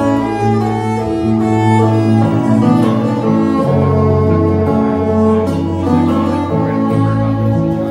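Live band music: a fiddle bowing a sustained melody over acoustic guitar.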